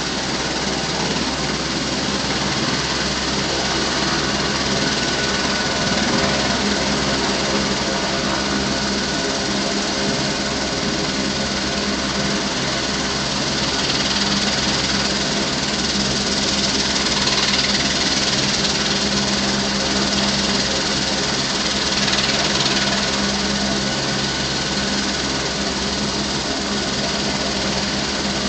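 Turbine helicopter running on the ground with its main rotor turning: a steady engine hum with a thin whine over it.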